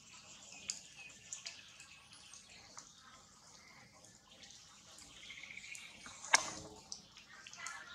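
Faint ambience with scattered small clicks and a few short high chirps, and one sharp click about six seconds in.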